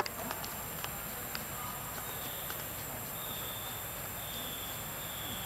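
Outdoor ambience: a steady high hiss with a faint thin high tone in the second half. There is a sharp click right at the start, followed by a few faint ticks.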